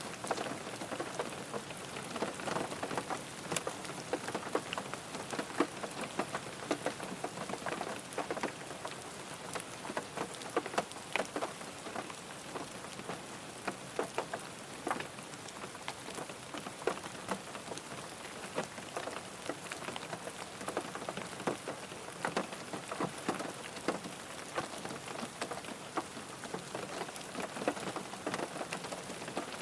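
Steady rain drumming on a car, with many individual drops ticking sharply on the body and glass over a constant patter.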